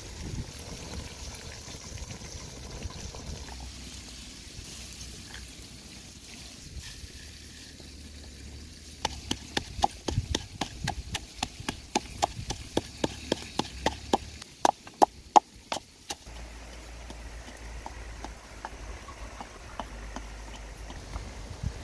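Wooden pestle pounding garlic and chili in a wooden mortar: a run of sharp knocks, about three to four a second, starting about nine seconds in and lasting some seven seconds. The last few strokes are the loudest.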